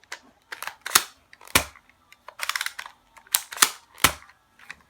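Sharp plastic clicks and clacks of a toy Nerf blaster being handled, about eight at irregular spacing.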